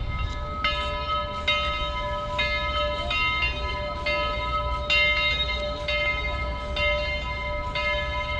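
Bell of Southern 4501, a 2-8-2 steam locomotive, ringing steadily at a little more than one stroke a second as the engine approaches, over a low rumble.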